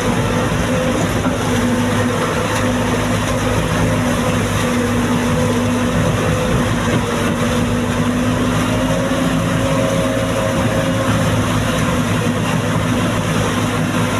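JCB backhoe loader's diesel engine running at a steady pitch as the machine drives through floodwater, with water splashing and churning around it.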